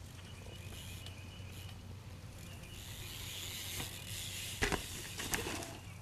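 Faint sounds of a BMX bike being ridden: light mechanical ticking over a steady low hum, with a sharp knock a little past the middle and a smaller one just after.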